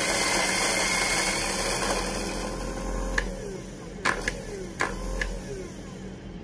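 Electric coffee grinder running as it grinds beans fine into a stainless steel dosing cup, its noise dying away about two and a half seconds in. About five sharp taps follow, knocking the last grounds out of the chute.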